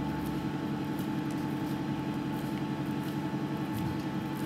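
Steady low hum of running kitchen equipment, unchanging throughout, with no distinct event over it.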